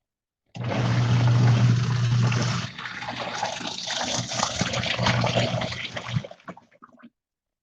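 Tabu twin-tub portable washer's wash tub running: a steady motor hum under water sloshing and splashing in the drum. It starts suddenly about half a second in, eases a little partway through, and stops near the end.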